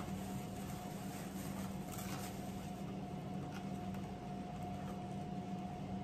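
Faint rustling and a few soft clicks of a philodendron cutting being eased out of its sphagnum moss packing by hand, over a steady low hum.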